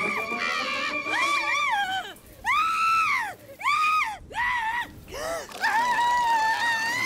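Cartoon character screaming in terror at a spider: a high-pitched held shriek, then a run of short shrieks that each rise and fall, then one long held scream near the end.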